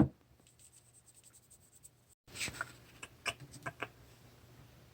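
Faint scratching and a few light, sharp taps, bunched together between two and a half and four seconds in, as small dried gold flakes are nudged and scraped across a surface.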